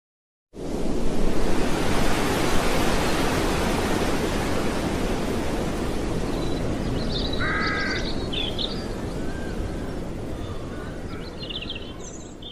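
Outdoor ambience: a steady rushing noise that starts suddenly, then fades slowly. A bird gives one harsh call about seven and a half seconds in, with a few higher chirps around it and near the end.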